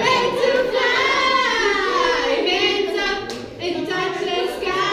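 A group of children singing together, several voices holding and bending notes at once, loud and without a break for most of the time.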